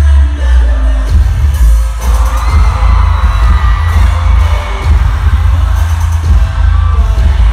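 Live K-pop dance music through an arena sound system, recorded from the stands, with a heavy bass beat.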